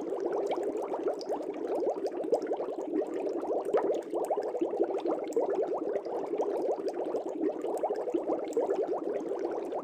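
Air bubbles streaming up through a fish tank, a steady dense bubbling made of many quick small pops.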